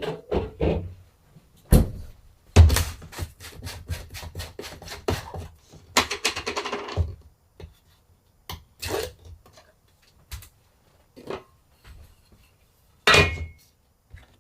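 Handling sounds from silk-screen plate-making work: a run of knocks and clicks, a scraping rub for about a second around the middle, and a sharp knock with a brief ring near the end.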